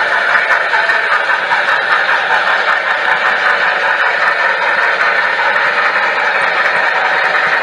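Sound system of a Broadway Limited Paragon3 HO scale N&W steam locomotive, playing steady steam-engine running sounds through its small onboard speaker: a constant hiss with faint rapid ticking.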